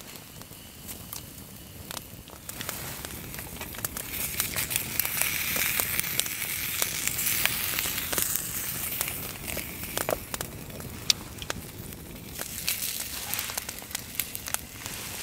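Bratwurst sizzling in a frying pan over a crackling wood campfire, with sharp pops and crackles from the burning wood throughout. The sizzling hiss swells after a couple of seconds and eases off about ten seconds in.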